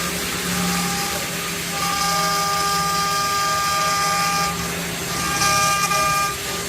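CNC wood lathe running, its stepper motors giving a steady whine that stops and restarts a few times over the noise of the machine.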